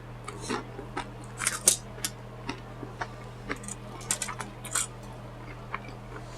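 Close-up chewing and mouth smacking, a run of irregular wet clicks and short crunches.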